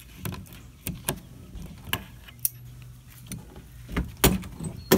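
Metal clinks and rattles of carabiner clips and a wire-mesh pen door being handled: a string of sharp clicks and knocks, the loudest about four seconds in and again at the end.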